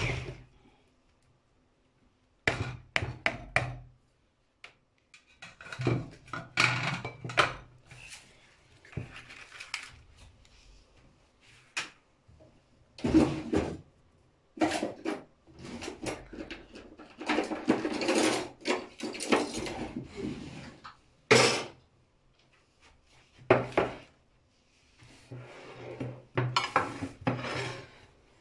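Irregular clattering and knocking of kitchenware: an electric hand mixer with its beaters, a plastic mixing bowl and a plate being handled and set down, in scattered bursts with short quiet gaps and one sharp knock in the later part.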